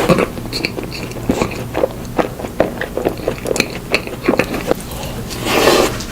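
Close-miked eating of profiteroles: chewing and biting with many short, wet mouth smacks and clicks, and a longer, louder rush of noise near the end.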